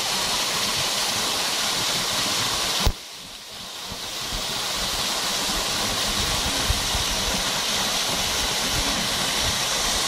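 Small waterfall pouring into a rocky pool: a steady rush of falling water. A single sharp knock just before three seconds in, after which the water sound drops away for about a second and then swells back.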